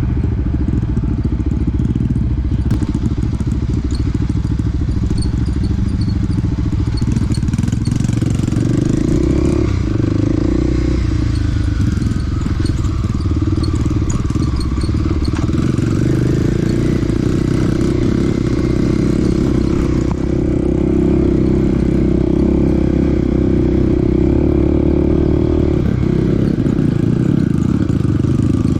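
Mini dirt bike's engine running while being ridden, steady with its pitch shifting a few times as the throttle changes.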